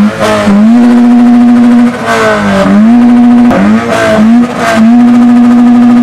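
Toyota 86's flat-four engine revved hard in a parked car, held at the same high pitch for about a second at a time, dropping briefly and climbing back several times.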